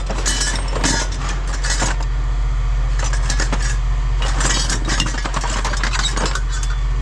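A diesel machine's engine running steadily, with scattered metallic clinks and clatters of scrap pieces being handled and tossed.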